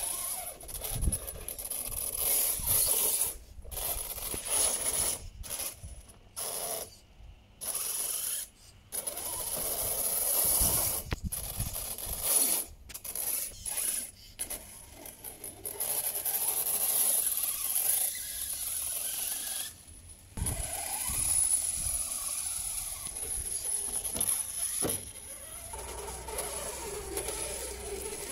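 Radio-controlled Jeep rock crawler with a brushless motor, its motor and gear train whirring in stop-start bursts as it crawls over sand and rocks, broken by many short pauses.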